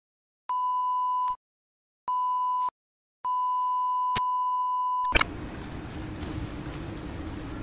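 Three electronic beeps on one steady pitch, two short and a longer third one. About five seconds in they give way to a steady rushing, rumbling noise.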